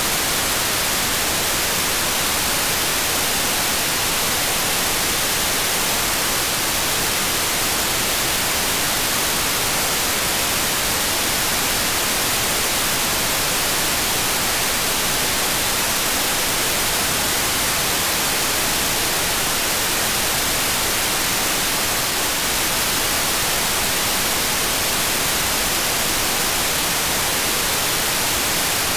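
Steady hiss of a software-defined radio receiver tuned to the ISS's 145.800 MHz FM downlink with no signal yet coming through: only receiver noise, brighter toward the high end, while the ISS is still right at the horizon.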